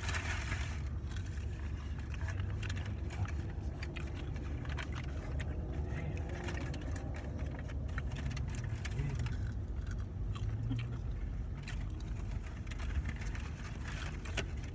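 Steady low rumble of a car's engine running, heard inside the cabin, with scattered small clicks and crackles of chewing and of fingers handling food packaging.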